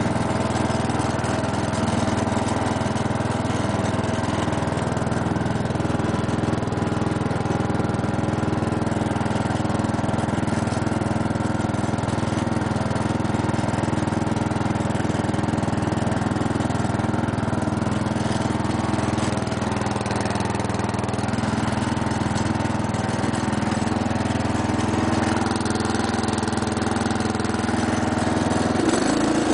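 The 12 hp Briggs & Stratton engine of a Murray rear-engine riding mower running steadily while the mower drives along. The engine note shifts just before the end.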